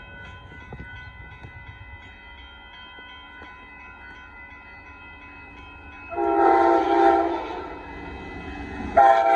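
Amtrak Texas Eagle passenger train approaching with a low rumble. Its locomotive horn sounds a loud, multi-note chord: one long blast about six seconds in, then another starting near the end.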